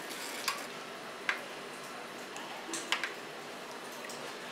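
Steel spoon clinking and scraping against a small wire-mesh strainer as a wet garlic-chilli paste is pressed through it to strain off the liquid: a few light clinks, three of them close together about three seconds in, over a faint steady hiss.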